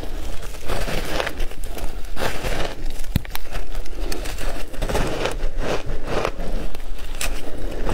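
Chunks of matcha-powdered ice being bitten and chewed close to the microphone: repeated gritty crunches, one or two a second.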